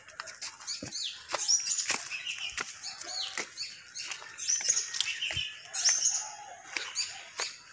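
Birds calling over and over with short, high, sweeping chirps, mixed with a few lower calls and the sharp ticks of footsteps on dry leaves and stones.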